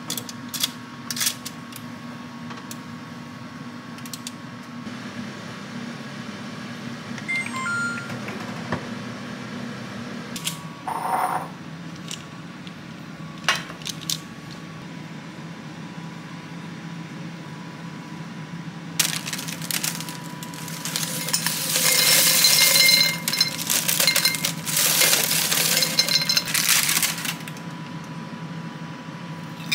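Kitchen work: scattered clinks and taps of dishes and utensils over a steady low hum. Past the middle comes a louder stretch of clattering noise lasting several seconds.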